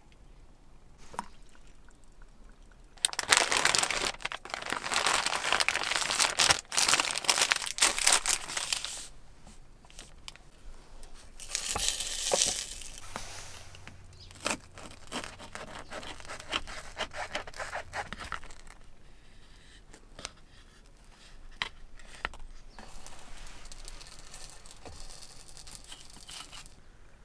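Crinkling and rustling, like material being handled, in several bursts: the loudest and longest from about three to nine seconds in, another around twelve seconds, and fainter rustling near the end.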